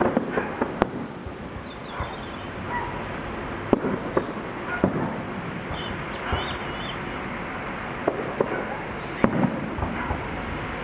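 Fireworks going off: sharp bangs and crackles at irregular intervals, every second or two, over a steady background rumble.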